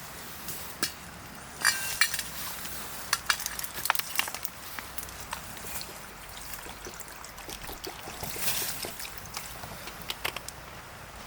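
Liquid being poured, with scattered clinks and light knocks of dishes. One louder ringing clink comes about two seconds in.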